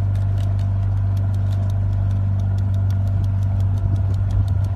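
Motorboat engine running steadily: a low, even hum with a fast, regular faint ticking over it.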